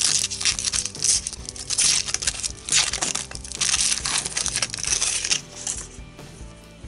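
Thin aluminium foil wrapper crinkling and tearing as it is peeled off a chocolate egg, in a busy run of rustles that stops about six seconds in. Light background music plays underneath.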